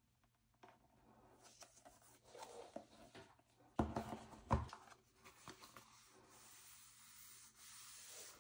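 Apple Watch Series 10 paperboard packaging being handled: card boxes sliding and rubbing against the folded paper wrap, with two louder knocks about four seconds in as the watch box is set down on the table.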